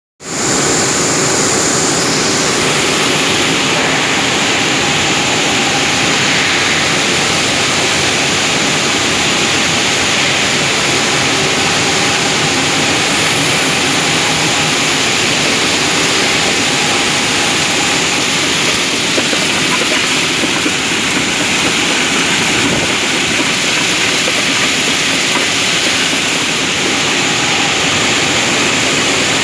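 Machinery of a pulses processing plant running: a loud, steady mechanical din with a strong hiss, unchanging throughout.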